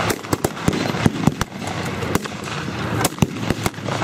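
Blank-firing rifles and other small arms going off in an irregular string of sharp cracks, about four shots a second, with no steady rhythm.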